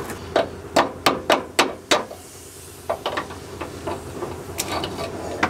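Six quick hammer blows, about three a second, on the van's suspension hardware during a shock absorber swap, followed by a few lighter knocks.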